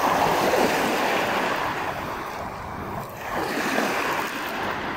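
Wind on the microphone over lapping sea water: a rushing hiss that swells twice.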